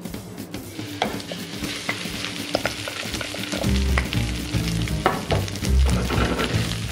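Cooked rice dropped into hot oil in a nonstick frying pan, sizzling from about a second in, then stirred with a wooden spatula that taps and scrapes against the pan.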